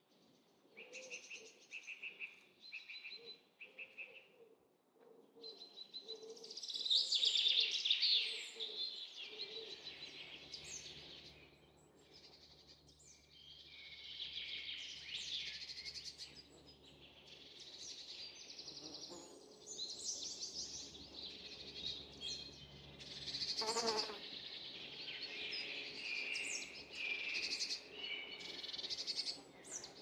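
Songbirds singing in the forest canopy, with phrases of repeated whistled notes and quick trills coming one after another. A faint, steady low hum comes in about ten seconds in.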